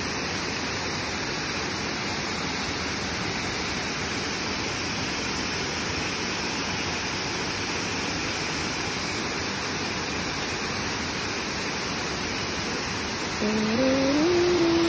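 Steady rush of a waterfall. Near the end a pitched, stepping sound like a voice comes in over it, louder than the water.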